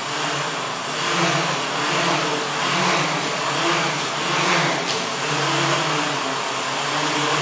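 Drone's propellers whirring steadily in flight: a continuous buzzing whir with several wavering hums under it.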